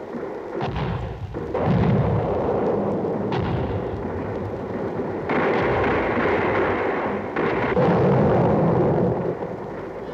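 Film battle sound effects: a run of explosions and artillery blasts, about five heavy ones, over a continuous noisy din.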